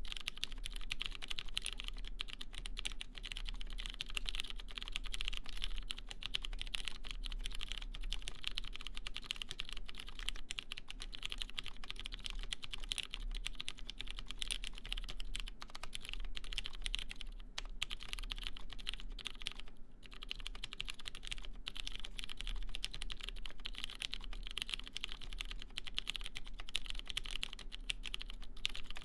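Continuous fast typing on a custom mechanical keyboard with lubed Cherry MX Clear tactile switches in a brass half plate, a steady patter of key presses with a couple of short pauses about two-thirds of the way through.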